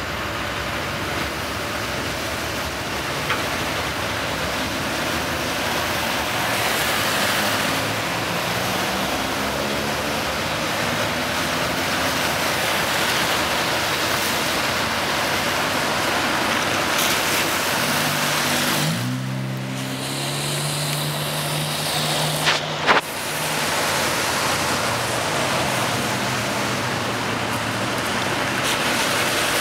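Steady rushing rumble of a long BNSF coal train's cars rolling across a rail overpass, mixed with tyre noise on wet pavement, heard from inside a car. About two-thirds through, a car engine's note rises and holds for a few seconds, followed by a couple of sharp clicks.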